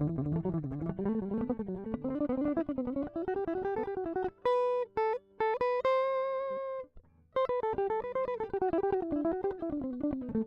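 Unprocessed electric guitar played straight into an audio interface through ToneRider Classics Alnico 2 humbuckers in split-coil mode: fast single-note runs that climb and fall. A few held, ringing notes come in the middle, then a short break before the runs resume.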